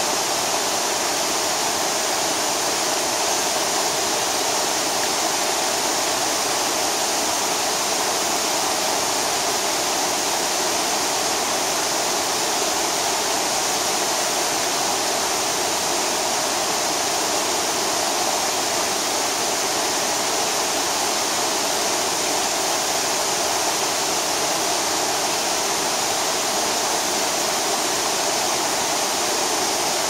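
Multi-tiered waterfall cascading over rock into a shallow, rocky river: the steady, unbroken noise of falling water.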